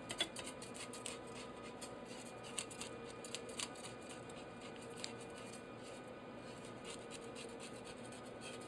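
Knife blade scraping the small, sparse scales off a mackerel's skin: quick rasping scrapes, thinning out around the middle and picking up again near the end.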